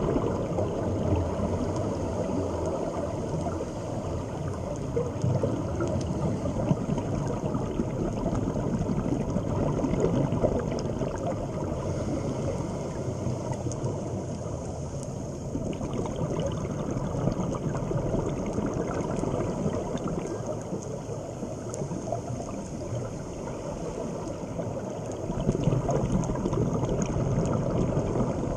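Underwater ambient noise: a steady, muffled low rushing and gurgling of water that swells and eases a little every few seconds.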